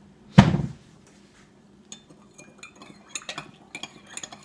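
Dishes and cutlery clinking at a kitchen counter: a run of light, irregular clicks and clinks from about two seconds in, after one loud thump just under half a second in.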